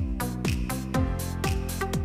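Electronic background music with a steady beat, about two beats a second, and a falling bass note on each beat.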